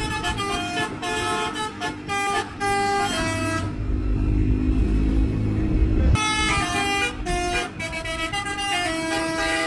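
Bus 'telolet' horn, a set of multi-tone air horns, playing a tune of short stepped notes. About three and a half seconds in the tune stops for a couple of seconds, leaving only a low rumble, then it starts up again.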